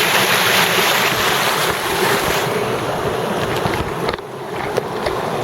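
Creek water rushing steadily over and through a cinder-block dam. The rush eases briefly about four seconds in, and a few faint clicks follow.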